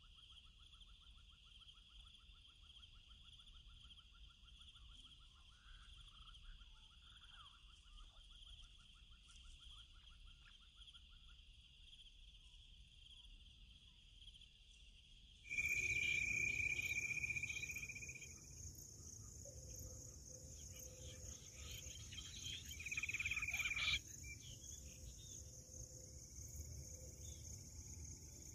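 Insects droning steadily, with a pulsing trill in the first ten seconds or so. About halfway through the drone changes abruptly to a higher pitch, and two loud, long shrill notes sound, the first lasting about three seconds.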